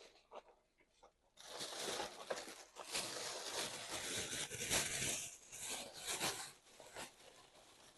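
Close-miked mukbang eating sounds: a few small mouth clicks, then from about a second and a half in, several seconds of loud, dense tearing and crinkling that eases back to scattered clicks near the end.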